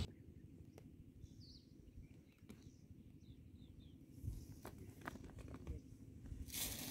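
Quiet outdoor background with a few short, high bird chirps and small ticks of rice grains being handled. About a second before the end comes a louder crinkling rustle of the woven plastic rice sack being handled.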